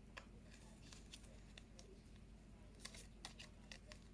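Near silence with faint scattered clicks and rustles of paper flashcards being shuffled by hand, a few more of them near the end.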